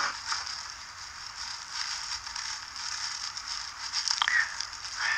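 Steady hiss with faint crackling, with a couple of soft clicks about four seconds in.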